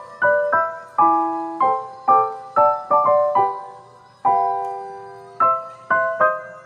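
Background piano music: a gentle melody of struck notes and chords, about two a second, each fading away, with one longer held chord midway.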